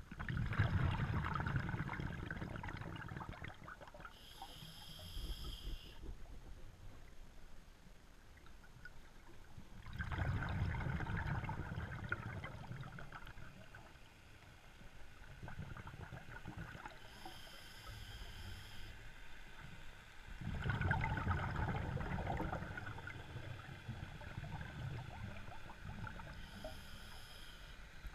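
Scuba diver breathing through a regulator in a slow cycle: three long gurgling bursts of exhaled bubbles, each followed a few seconds later by a short, high hiss of inhalation through the regulator.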